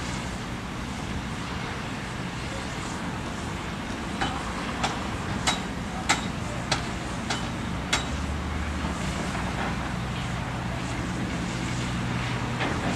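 Diesel engine of a Hyundai crawler excavator running steadily, with a run of about seven sharp knocks, evenly spaced a little over half a second apart, around the middle.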